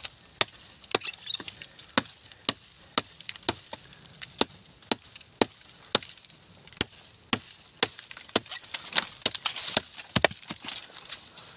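Fox Native fixed-blade knife chopping into a dry log: repeated sharp thwacks of the blade biting the wood, about two strokes a second.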